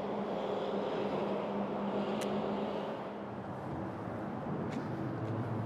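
Street traffic: a vehicle engine humming steadily close by, its hum dropping lower from about four seconds in.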